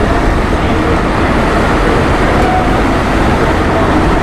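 Steady, loud rumbling rush aboard the steamship S.S. Badger as it manoeuvres near the dock, its propellers churning the water below, mixed with wind on the microphone.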